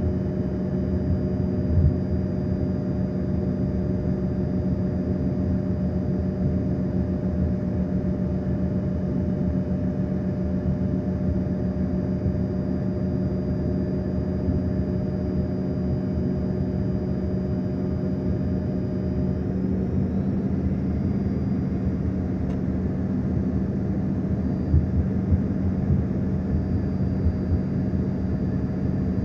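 Steady drone of an airliner's engines and airflow heard inside the passenger cabin in flight, with a constant low hum under it. About twenty seconds in, a couple of the higher steady tones drop out, as if engine power changes slightly.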